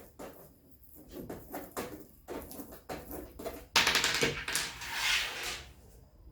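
Hands working on a PC case as it is taken apart: a string of light clicks and knocks, then a loud rustling scrape about four seconds in that lasts over a second.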